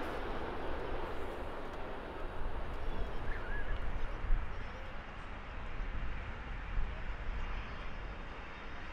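Jet airliner's engines on landing, a steady rushing noise that eases over the first few seconds, over a low rumble.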